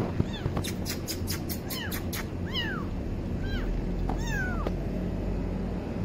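A very young kitten, about a month old, mewing: about five high-pitched mews, each rising and then falling in pitch.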